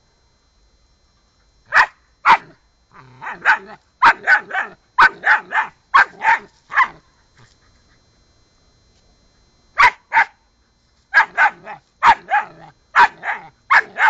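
German Shepherd puppy barking at a cat in sharp, high barks: two single barks, then a fast run of about three barks a second, a pause of a couple of seconds, and another fast run near the end.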